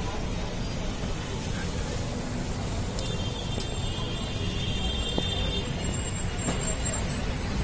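A steady low rumble, with a few light metallic clicks about three seconds in and again about five seconds in.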